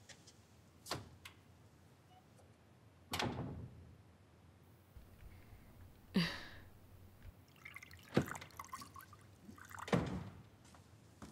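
Several faint separate knocks and clinks spaced a second or two apart. Near the end, liquid is poured from a metal cocktail shaker into a glass.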